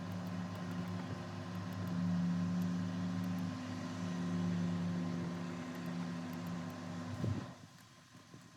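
A motor running steadily with a hum, switched off about seven seconds in, with a brief falling whine as it winds down.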